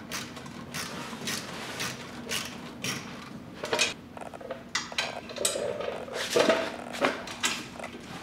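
Hand tools and nuts and bolts clicking and clinking against the steel kart frame while the brake pedal bracket is bolted down: a run of short metallic clicks, a couple a second, with a few louder knocks in the second half.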